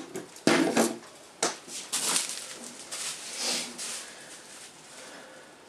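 Handling noises: a few sharp knocks as items are set down on a wooden table in the first two seconds, then softer rustling of plastic bubble-wrap packaging.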